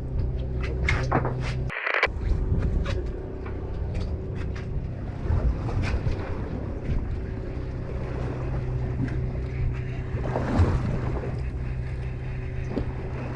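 Charter boat's engine running steadily with a low drone, with wind on the microphone. Scattered clicks and knocks come in the first couple of seconds, and a brief rush of noise comes about ten seconds in.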